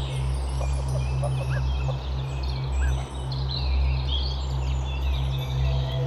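Geese calling, with small songbirds chirping over a steady low rumble.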